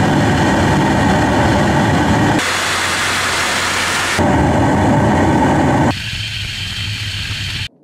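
Steady noise of a heavy jet bomber in flight, engine and airflow, across several edited clips that cut abruptly about every two seconds, four in all. It drops away suddenly just before the end.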